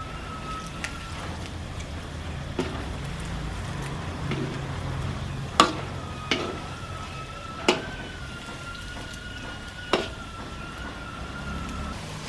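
Kitchen sounds during deep-frying: about five sharp knocks, like a utensil striking a pan, over a low steady rumble. A steady high whistling tone holds for about a second at the start and again from about six seconds in until near the end.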